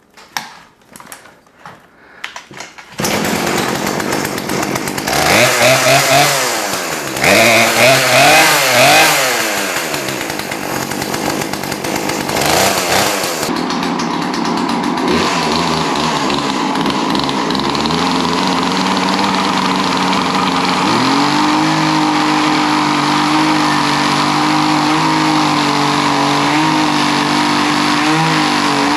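Poulan Pro PP4218A 42cc two-stroke chainsaw, fitted with a new carburetor, starting up about three seconds in after a few quiet clicks. It is revved up and down several times, then settles into a steady idle.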